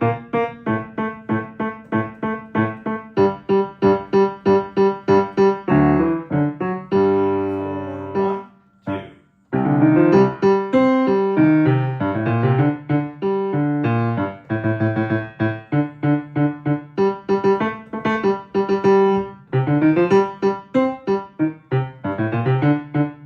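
Piano playing evenly repeated chords, about three a second, at a slowed practice tempo; the sound dies away briefly about eight and a half seconds in, then the chords pick up again.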